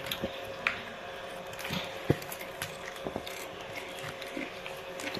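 Fork clinking and scraping on a ceramic plate while cutting into a fried samosa: a few light, scattered clicks, with a faint steady hum underneath.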